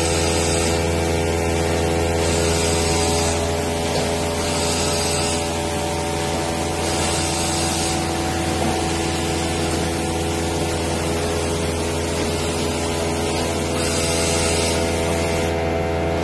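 1989 Toshiba BTD-200-Q horizontal boring machine running: a steady low hum under a whine of many steady tones, with a hiss that swells briefly several times, a couple of seconds apart.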